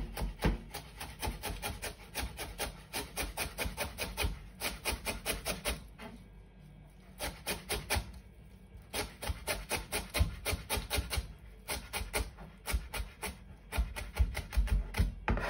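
Chef's knife rapidly chopping fresh coriander leaves on a plastic chopping board: quick, even knocks of the blade against the board, several a second, with a few short pauses.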